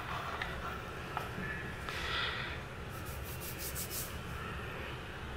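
Faint handling noise from a plastic makeup compact being turned and rubbed between the fingers: light clicks, a brief rubbing sound about two seconds in, and a cluster of crisp small ticks and rustles a little past the middle, over a low steady room hum.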